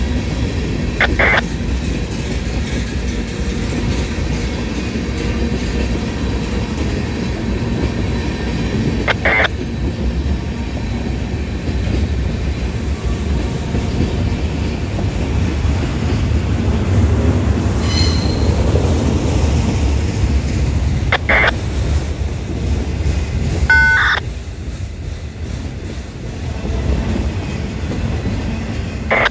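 Freight train of tank cars and autorack cars rolling past, a steady rumble of steel wheels on rail. Short high squeals from the wheels cut through about five times.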